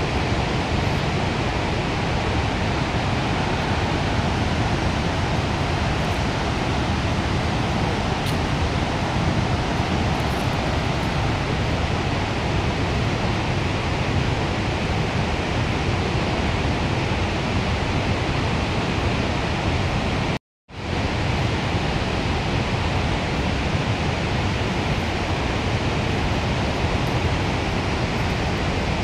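Steady, even roar of Victoria Falls' falling water. It cuts out for a split second about two-thirds of the way through.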